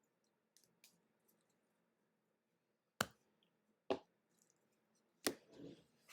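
Trading cards and card boxes being handled on a table: faint light clicks, then three sharp taps or knocks, the last followed by a brief rustle.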